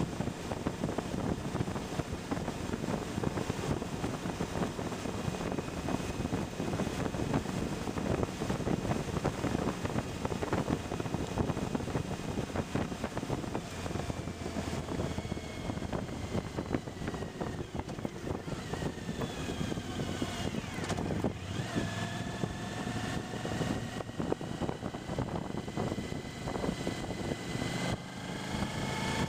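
Wind buffeting the microphone over the engine and road noise of a Suzuki V-Strom motorcycle riding at road speed, with a few gliding whines rising and falling in pitch in the second half.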